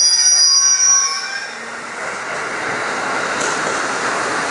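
Container freight wagons running through at speed with a steady high-pitched wheel squeal that fades about a second and a half in, followed by the broad, steady rush of an electric commuter train passing close alongside.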